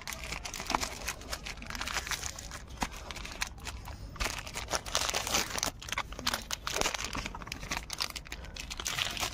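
Thin white packaging wrap crinkling and rustling as hands unwrap a small accessory, a dense run of irregular crackles and clicks.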